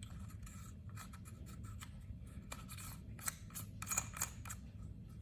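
Light handling clicks and small scrapes from a rifle and scope being handled, with a quick cluster of sharper clicks about three to four seconds in.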